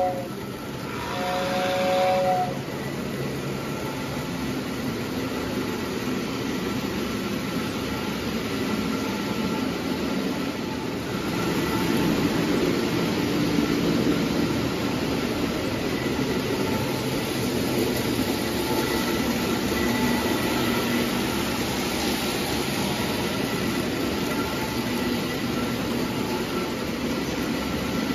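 Lionel O-gauge toy trains running on tubular three-rail track: a steady rumble of wheels and motors, with a short two-tone toy train whistle blast about a second in.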